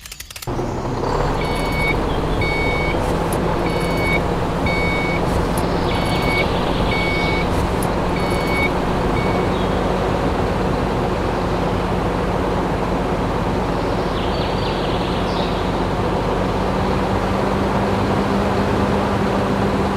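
Construction vehicle's motor running steadily while its reversing alarm beeps repeatedly, the beeps stopping about halfway through.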